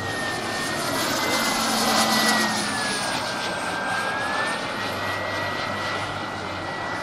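Turboprop engine of a radio-controlled scale Embraer T-27 Tucano flying a slow pass: a steady turbine whine over propeller noise. The whine swells a little about two seconds in, dips slightly in pitch past the middle, then rises again.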